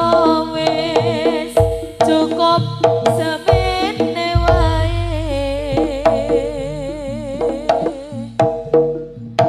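Jaranan gamelan music: quick hand-drum (kendang) strokes over deep gong tones, with a high melody that wavers rapidly in pitch.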